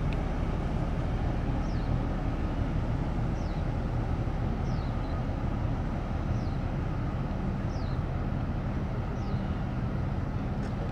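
Steady low rumble of a large chemical tanker passing close by under way. A faint, short, high falling chirp repeats about every second and a half.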